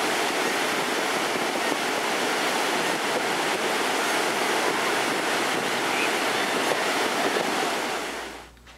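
Ocean surf breaking on a beach: a steady, continuous rush of waves that fades out near the end.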